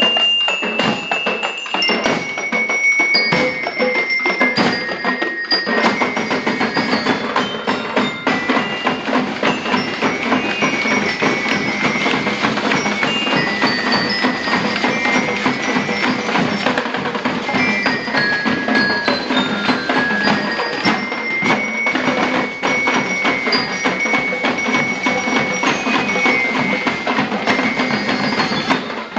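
Marching band drum line playing a fast, steady rhythm on snare and bass drums, with bell lyres ringing out a melody of high bell notes over the drums.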